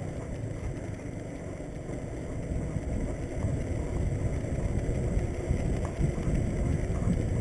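Wind buffeting the microphone during a bike ride, over the rumble of bicycle tyres rolling on pavement; it grows louder about three seconds in.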